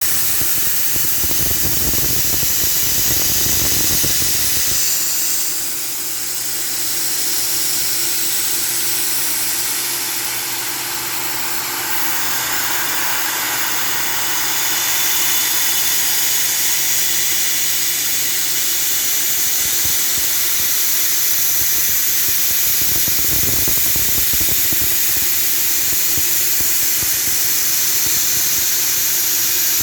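Milling machine running while machining a V-block: a steady loud hiss, with a low motor hum that comes in about five seconds in and fades out near twenty seconds.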